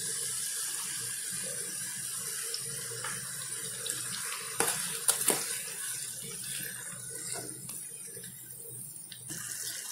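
Chopped onions sizzling steadily in hot oil in a pan as tomato purée is added and stirred in, with a few sharp clicks of a metal spoon against the pan about halfway through.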